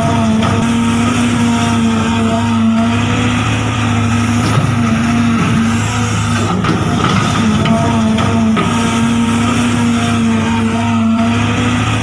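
Small electric motors of a radio-controlled excavator and RC dump trucks running, a steady whine over a hum, its pitch wavering and briefly dropping out every second or two as the controls are worked.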